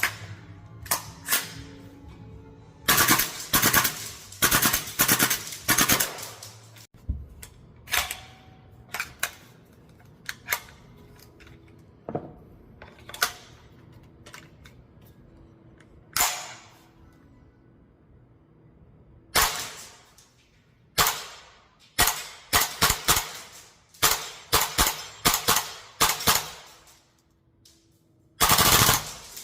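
VFC AR15 gas-blowback airsoft rifle firing, each shot a sharp crack with the bolt cycling back. It fires single shots with pauses between them, and several quick strings of rapid shots.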